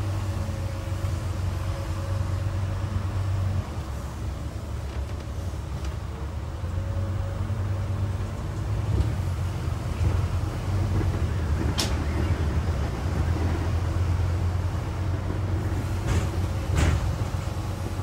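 Double-decker bus driving, heard from inside on the upper deck: a steady low engine drone over road noise. The drone dips slightly a few seconds in, and there are two sharp clicks in the second half.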